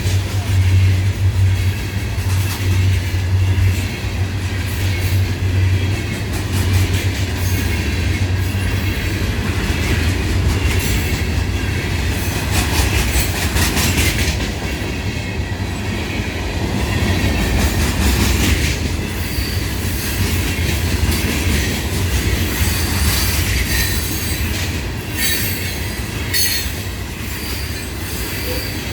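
A freight train of loaded rock and gondola cars rolling past on steel wheels, with clacking over the rail joints and on-and-off wheel squeal. A low diesel drone stands out in the first few seconds and then falls away.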